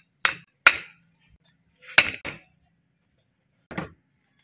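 A large knife chopping through a whole trevally and striking the wooden chopping block beneath: five sharp knocks, in two quick pairs and then a single one near the end.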